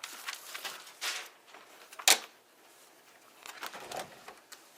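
Plastic printer parts and paper being handled: rustling, then one sharp click about two seconds in, followed by a few lighter clicks and rustles.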